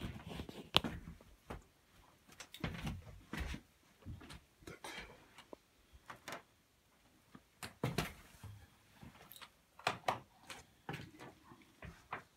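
Irregular knocks, clicks and low thumps of someone moving about a small timber room: footsteps on wooden boards and fittings being handled.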